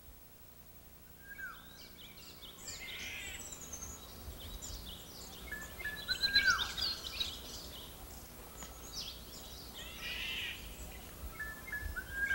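Birds calling outdoors: many quick high chirps with several short whistled notes that slide downward, starting about a second in.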